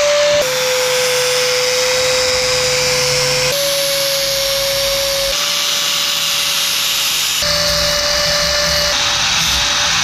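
Makita 4.5-inch angle grinder with a flap disc running under load, sanding down a hardwood axe handle: a steady motor whine over the hiss of abrasive on wood. The whine steps slightly in pitch several times.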